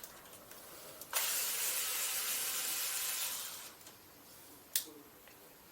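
Cordless electric screwdriver running for about two and a half seconds, backing a screw out of the e-bike hub motor's cover, then a single sharp click near the end.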